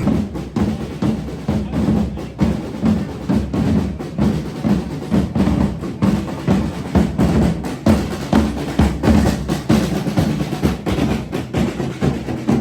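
Parade drum band playing a steady marching beat on bass and snare drums.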